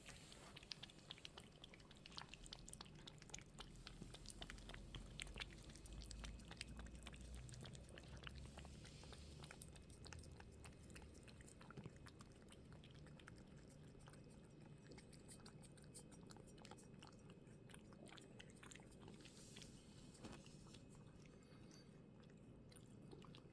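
Cats chewing and biting on treats: faint, rapid little clicks and crunches, thinning out after about halfway.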